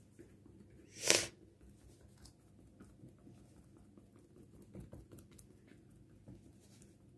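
Fork tines pricking a puff-pastry tart lid in a glass pie dish: a string of faint soft taps. One short, loud rushing noise about a second in stands out above them.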